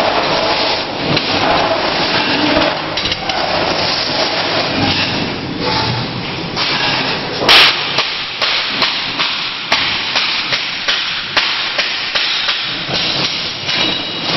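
Spot welding on sheet steel: a loud crack about halfway through, then a run of sharp snaps over the next few seconds, over a steady hiss of noise.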